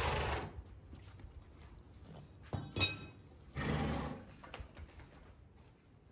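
Horse snorting twice, two short breathy blows about three and a half seconds apart, with a couple of light knocks in between.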